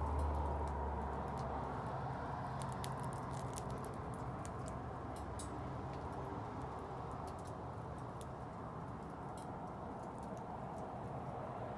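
Wood bonfire burning with a steady rushing hiss and scattered sharp crackles and pops. A low rumble fades out in the first second or two.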